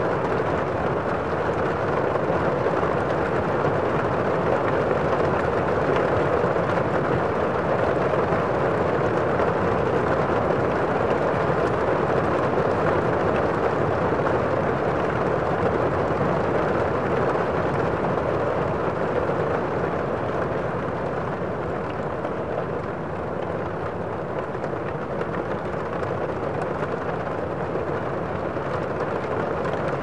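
Heavy rain heard from inside a building: a steady, muffled hiss with little high end, easing slightly a little past two-thirds of the way through.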